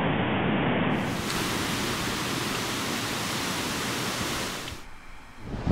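Steady rushing noise of breaking ocean surf mixed with wind on the microphone, dropping away shortly before the end.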